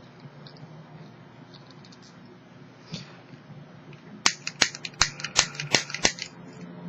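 Tri-Flame butane torch lighter's piezo igniter clicked about ten times in quick succession, sharp snapping clicks, to relight it after its flame height was turned down. A few faint ticks come before them.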